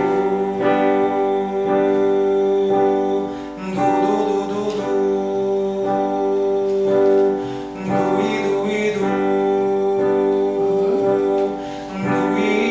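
Instrumental backing track for a vocal warm-up exercise, its chords changing about once a second, with a voice singing along over it and wavering in pitch.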